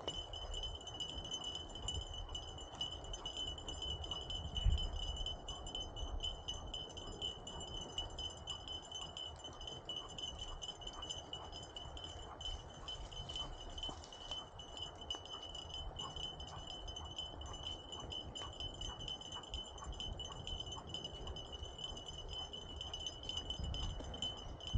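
Bicycle rolling over a leaf-covered dirt trail as it is towed by two dogs: a low tyre-and-trail rumble with a steady high metallic ringing over it, and a single bump about five seconds in.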